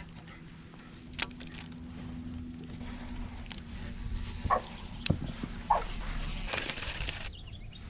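An animal's short calls, two of them a little over a second apart near the middle, with a few light clicks in between.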